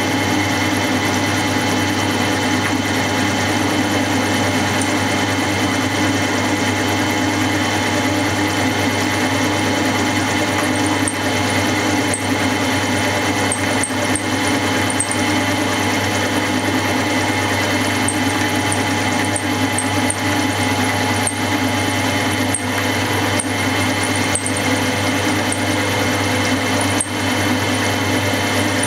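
Milling machine running a 60-degree dovetail cutter through a steady cut along a model lathe saddle, a continuous motor-and-spindle hum with the grind of the cut. Brief high chirps come and go through the second half.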